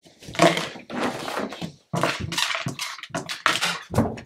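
Golden retriever mouthing and chewing a plastic frisbee: a run of crunching, scuffing noises in several chunks of about a second each.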